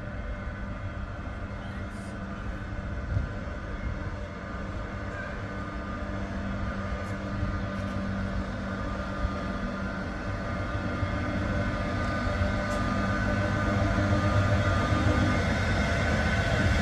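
Sóller electric tram running with a steady hum and rumble, getting gradually louder as it approaches.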